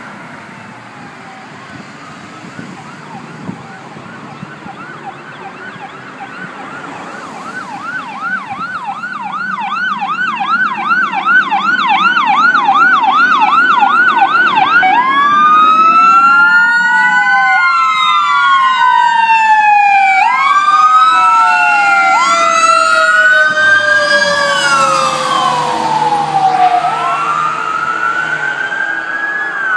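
Sirens of two fire engines on an emergency call, coming closer and growing loud. First comes a fast yelp of about three sweeps a second, then overlapping slow wails that rise and fall, with the trucks' engines rumbling underneath.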